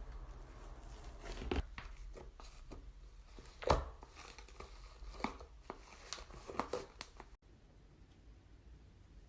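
Slime being squeezed and pulled by hand: irregular sticky crackles and pops, the loudest about three and a half seconds in, breaking off suddenly about seven seconds in.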